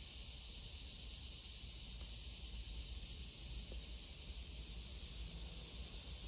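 Faint, steady outdoor insect chorus, an even high-pitched drone, over a low steady rumble.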